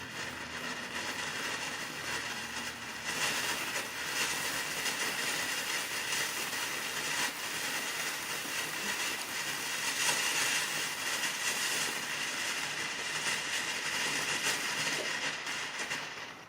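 Cutting Edge Blue Stars 9-inch fountain firework burning: a steady rushing hiss of spraying sparks that dies away near the end.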